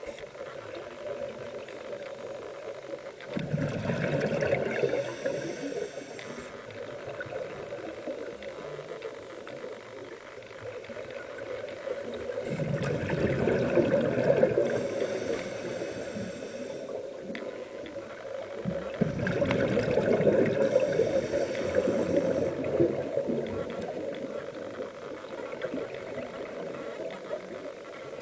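Water sloshing and gurgling, a continuous rushing noise that swells louder three times.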